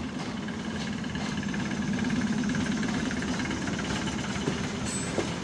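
ET2M electric train giving a steady low electrical hum with a faint whine above it, swelling slightly midway. A short hiss comes near the end.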